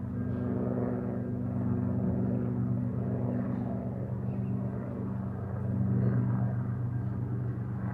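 A vehicle engine running steadily with a low, even hum that swells about six seconds in.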